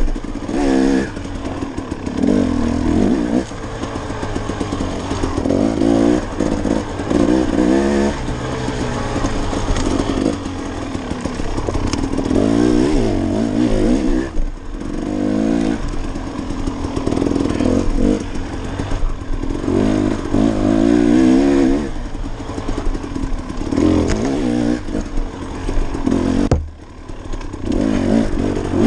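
KTM 300XC single-cylinder two-stroke dirt bike engine under hard riding, revving up and down in repeated surges as the throttle is rolled on and off. The engine drops off briefly about two seconds before the end.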